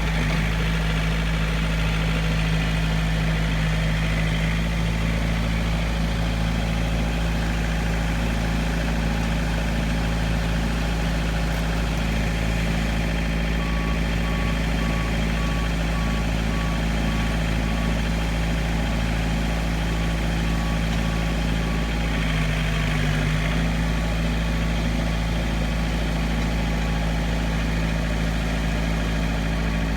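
Bulldozer's diesel engine running steadily. From about halfway through, its reversing alarm beeps about twice a second as it backs up.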